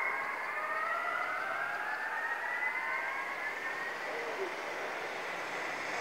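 Hörmann ECN electronic sirens sounding their weekly test alarm: several tones overlapping, each rising slowly in pitch over a few seconds, and growing fainter after about four seconds.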